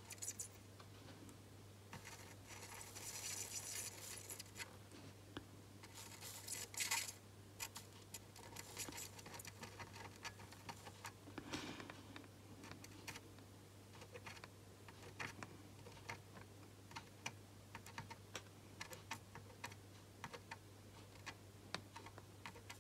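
Faint small clicks and scratches of a soldering iron tip and tool working along a processor's fine legs during drag soldering, with a couple of brief hisses about three and seven seconds in, over a steady low hum.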